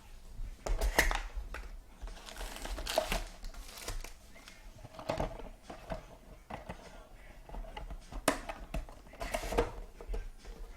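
Trading-card boxes and foil pack wrappers being handled: intermittent crinkling and rustling of packaging, with a few short knocks.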